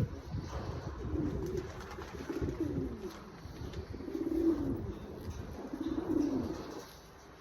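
Domestic pigeon cooing: about four low coos, each a short call that rises and falls, one every second and a half to two seconds, over a low rumble.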